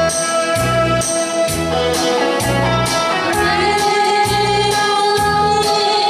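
A woman singing into a microphone over amplified musical accompaniment with a steady bass beat about twice a second.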